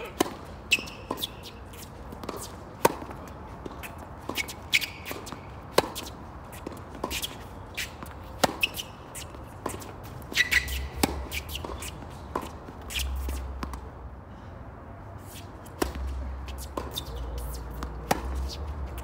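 Tennis ball struck back and forth by rackets in a singles rally, starting with a serve, sharp hits every two to three seconds with the ball bouncing on the hard court in between.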